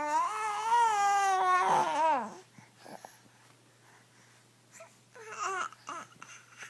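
Baby vocalizing: one long wavering, cry-like squeal that glides down in pitch and stops about two seconds in, then a few short babbling sounds near the end.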